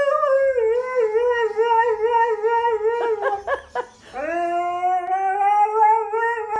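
Siberian husky howling: a long, wavering howl, a few short yips a little past the middle, then a second long howl that starts low, rises and holds.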